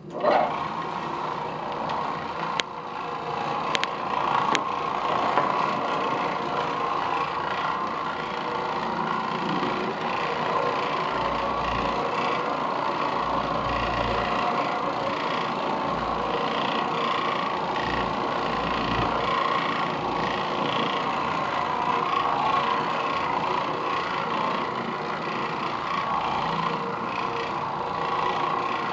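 Oreck Orbiter orbital floor machine running with a steady motor hum as its bonnet pad scrubs carpet, with occasional dull low thumps in the middle stretch.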